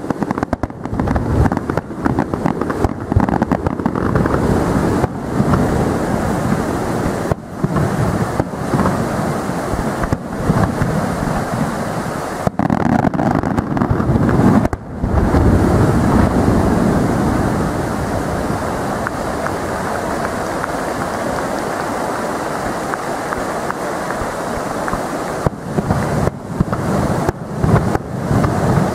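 Fireworks display: aerial shells bursting in a dense, continuous barrage whose booms blur together into a steady rumble, breaking into more separate bangs near the end.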